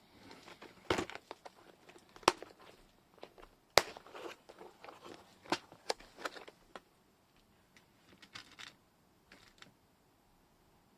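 Sharp clicks and knocks with some rustling as a craft-supply container is opened and rummaged through for wax beads. The clicks come every second or so at first and thin out after about seven seconds.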